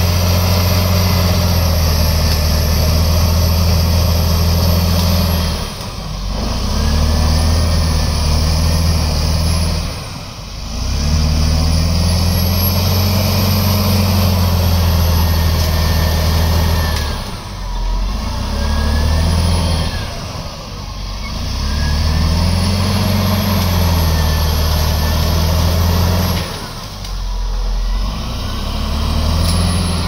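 A bulldozer's diesel engine running loud under load. Every few seconds the revs dip and then climb back up, with a high whine that rises and falls with them.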